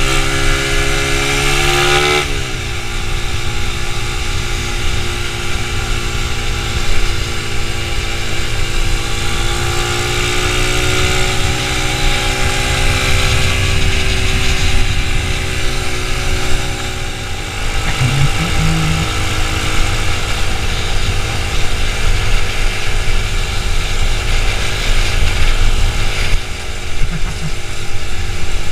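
Motorcycle engine running under way, with wind rushing over the microphone. The pitch climbs for the first two seconds, drops sharply at a gear change, then rises and falls gently as the bike cruises.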